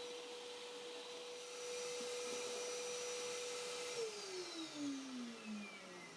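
Power tool motor running with a steady whine, louder and noisier for about two seconds in the middle. It is switched off about four seconds in and winds down in a falling whine.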